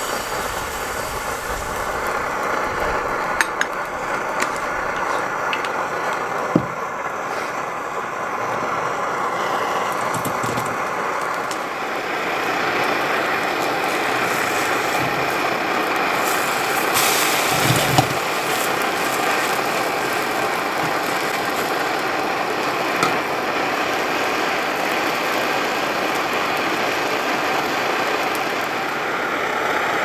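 Brass Optimus Svea liquid-fuel stove burning at full flame under a cast-iron pan: a steady, very noisy rushing hiss that gets a little louder partway through, with a few light clicks over it.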